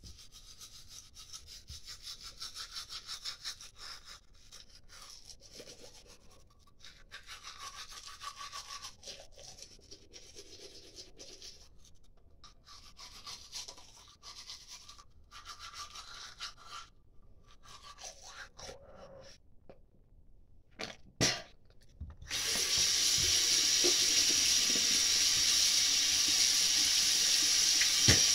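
Toothbrush scrubbing teeth in quick, uneven strokes. A couple of short knocks come just before a tap is turned on about three quarters of the way through, and water then runs steadily into the sink, louder than the brushing.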